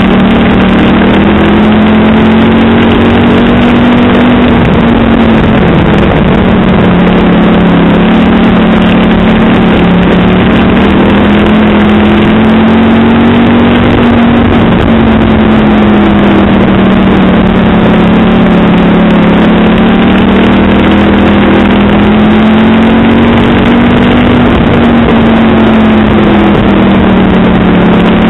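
Hobby stock race car engine heard from inside the car during a race. It runs very loud and steady, with its pitch climbing and dropping about every ten seconds as the car laps the oval.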